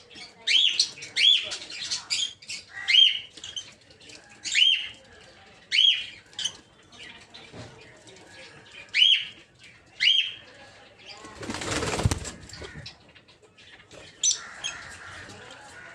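Peach-faced lovebirds giving short, sharp, shrill chirps in quick succession, about one a second. About twelve seconds in comes a second-long rushing flutter of flapping wings, then a few more chirps.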